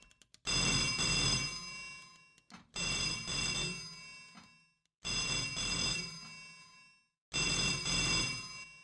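Telephone bell ringing four times, about every two and a quarter seconds, each ring starting sharply and fading away.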